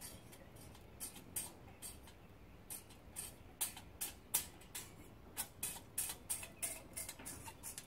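Steel feeler gauge blade clicking and tapping against a straight edge and the Toyota 3S-FE engine block deck while the gap under the straight edge is probed for warpage. The light ticks come irregularly, sparse at first and quicker after about halfway.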